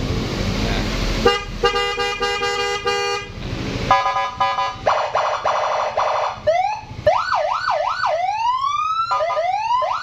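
Aftermarket Senken siren on a Yamaha XMAX scooter being switched through its tones from a handlebar button panel: after about a second a steady horn-like blare, then a fast trill, then repeated rising wails and quick up-and-down yelps.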